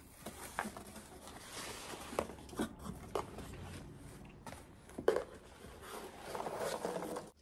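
Cardboard box being opened by hand and the paper inside handled: uneven rustling and scraping, with a few light knocks and ticks.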